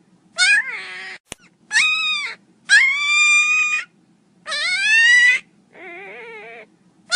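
Miniature pinscher puppy crying loudly: a run of about five high, wavering whines, each about a second long with short gaps, one of them quieter and lower. A single sharp click about a second in.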